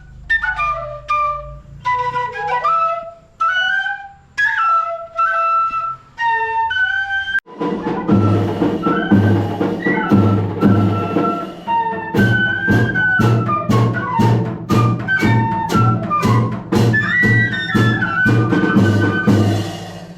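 Pífano (cane fife) playing a wavering folk melody alone. About seven seconds in, the full banda cabaçal comes in: fife over a bass drum beating about twice a second, with sharp drum and cymbal strikes added a few seconds later.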